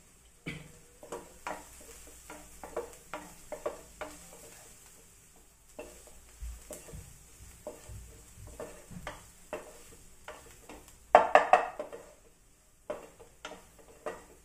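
A spoon stirring and scraping through fried onions in a pan, mixing in the freshly added turmeric. It makes a run of irregular scrapes and taps against the pan, with a louder burst of scraping about eleven seconds in.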